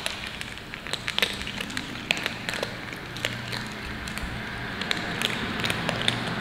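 Several kittens crunching dry kibble from a metal tray: a dense, irregular run of small crunches and clicks.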